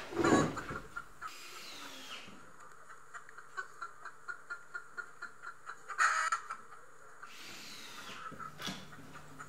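Chickens clucking in a steady run of short calls, with a couple of falling chirps. A loud knock comes just after the start and a short louder burst about six seconds in.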